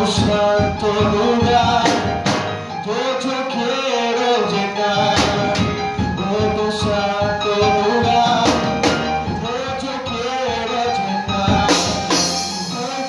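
A live band playing a song: electric keyboard, drum kit and a man singing into a microphone. Cymbal crashes land in pairs about every three seconds.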